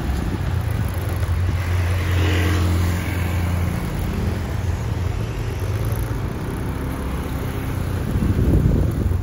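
Motor scooter engine running while riding along a road, with wind and road noise on the microphone. A clearer engine tone stands out from about one and a half to four seconds in.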